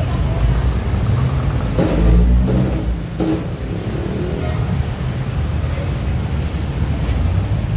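Busy street noise dominated by a low motor-vehicle rumble that swells about two seconds in as it passes close, with faint voices in the background.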